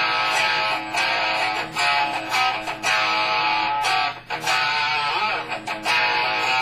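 SG-style electric guitar played through a Peavey amplifier and speaker cabinet, giving a thick, overdriven tone: chords and riffs with short breaks between phrases, a deeper break about four seconds in, and a bent note just after five seconds.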